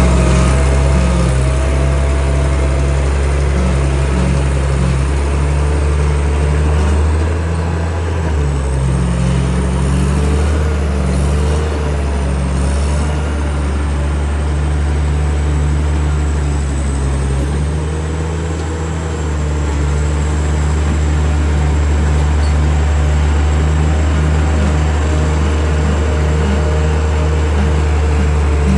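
Caterpillar D6D crawler bulldozer's diesel engine running steadily and loudly, its engine note dipping and recovering a couple of times as it works.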